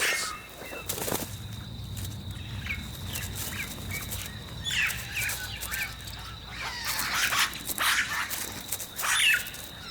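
Oropendola colony calling: many short calls that slide in pitch, coming from several birds and thickening in the second half, over a steady high whine.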